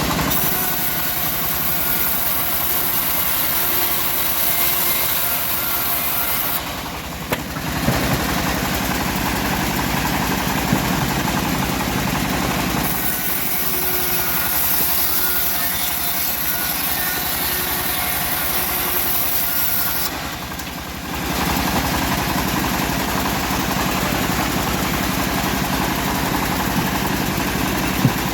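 Engine-driven homemade bandsaw mill running steadily while sawing a teak log, with a high hiss over the engine that drops out briefly twice.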